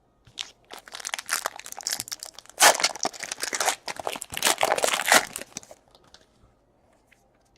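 Trading-card pack wrapper being torn open and crinkled, a dense run of rapid crackling with two louder stretches, dying away about five and a half seconds in.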